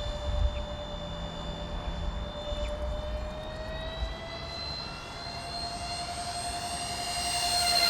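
Twin 70mm electric ducted fans of an RC A-10 Warthog jet whining steadily in flight, rising in pitch and growing louder over the last few seconds as the model approaches.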